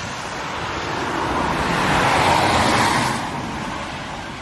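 A car passing by on the road, its noise growing louder to a peak around the middle and then fading away.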